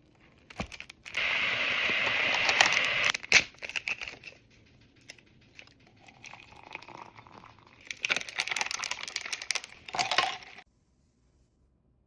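Crinkling and rustling of food packaging in two stretches, with a sharp click a little after three seconds in; it cuts off to silence about a second and a half before the end.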